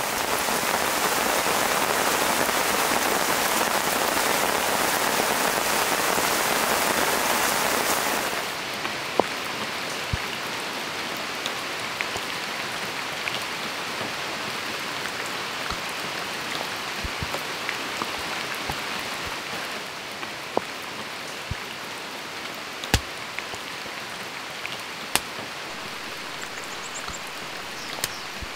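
Heavy rain falling on forest foliage, easing suddenly about eight seconds in to lighter rain with scattered single drops dripping.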